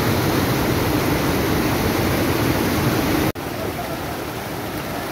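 Muddy floodwater pouring over a reservoir spillway: a steady, heavy rush of water. About three seconds in it breaks off abruptly and gives way to the slightly quieter rush of a flooded river.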